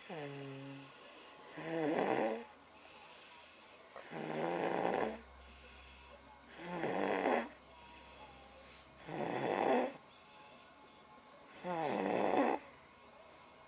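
A sleeping young child snoring: five snores, one about every two and a half seconds, with quieter breathing between.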